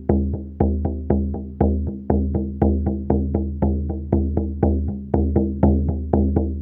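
A 40 cm Lakota-style shamanic frame drum with a vegan synthetic head, beaten steadily at about four strokes a second. Each stroke rings with a low, well-tuned tone that dies away before the next.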